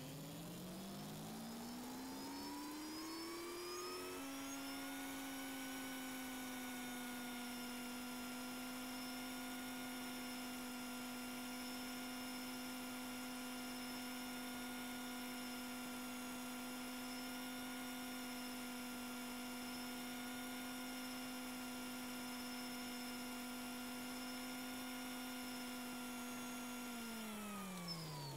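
Centrifuge motor and rotor whining as it spins up, the tone rising for about four seconds, then holding steady at its 3500 rpm running speed, and falling in pitch as it spins down near the end.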